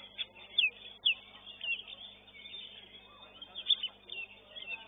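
Oriental magpie-robin (kacer) singing: a quick run of short, sharp whistled notes and chips, with the loudest chips about half a second and a second in and again near four seconds.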